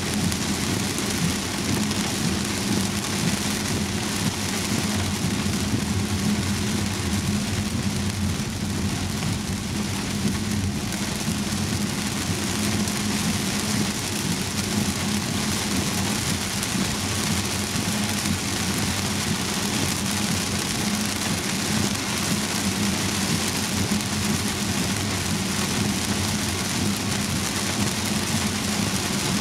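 Heavy rain pelting a Volvo S90 as it drives, heard from inside the cabin, over the low drone of tyres on the flooded road. The noise is dense and even throughout.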